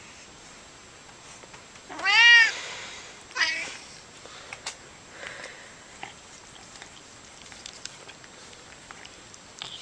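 Domestic cat meowing twice: a loud meow that rises and falls in pitch about two seconds in, then a shorter, falling meow a second later, followed by a few faint clicks.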